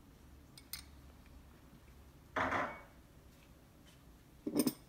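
Dishes and a spoon being handled while baking ingredients are added to a ceramic mixing bowl of flour: a faint click, one louder short scrape-like clatter about halfway through, and a quick cluster of knocks near the end.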